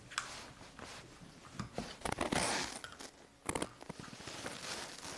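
A knife scraping and clicking against a plastic ice-cube tray as biscuit dough is pressed into its cells. Scattered light knocks of the tray on a wooden board, with the loudest scrape about two seconds in and a quick run of clicks a second later.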